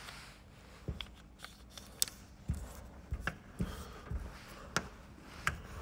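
Faint, irregular light clicks and knocks, about a dozen over a few seconds, like small handling noises in a quiet room.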